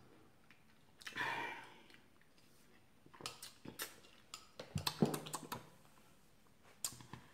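A drink sipped through a straw from a glass, with a short breathy rush about a second in, then a run of small clicks and light knocks as the glass is handled and set down.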